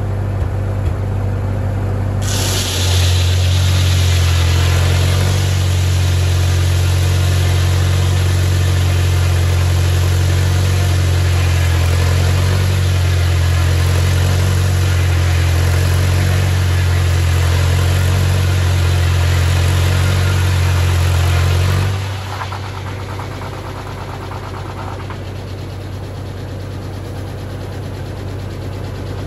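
Straight-piped Farmall Super M four-cylinder engine driving a sawmill. About two seconds in the blade enters the log: the engine's low drone gets heavier under load and the noise of the blade cutting wood joins it. The cut lasts about twenty seconds, then stops suddenly as the board comes off and the engine drops back to running unloaded.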